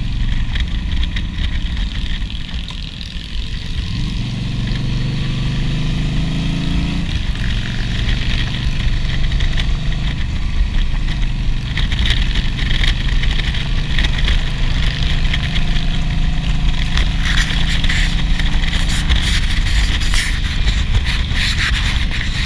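Motorcycle engine running at road speed, heard from the bike itself, under steady wind rush over the microphone. The engine note gets louder for a few seconds from about 4 seconds in, then settles back.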